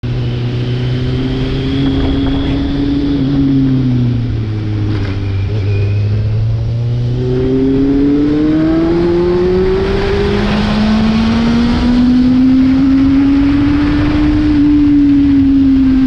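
Kawasaki Z750 inline-four running through an aftermarket carbon exhaust with its dB killer removed, on the move. The engine note sinks over the first few seconds, then climbs steadily through the middle and levels off near the end, with wind rush underneath.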